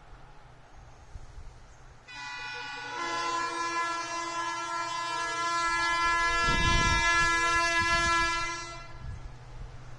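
WDP4B diesel locomotive's air horn sounding one long, steady multi-tone blast as the train approaches. It starts about two seconds in, swells louder and cuts off about nine seconds in.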